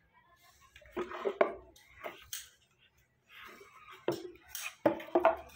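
Several sharp wooden knocks and clacks, as of Kashmir willow cricket bats knocking against one another while they are handled, some coming in quick succession about a second in and again near the end.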